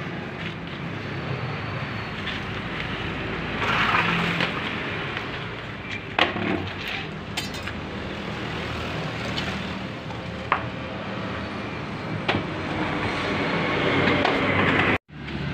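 Debris being handled and pulled out of an opened concrete tomb: scraping and rustling with a few sharp clinks and knocks, over steady background noise.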